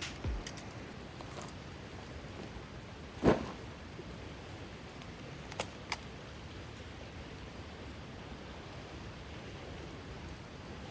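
Steady rush of strong wind, with one loud low thump about three seconds in and two short sharp clicks near six seconds.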